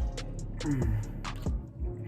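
Background music: a beat with deep bass drum hits that slide down in pitch, short high hi-hat ticks and held tones.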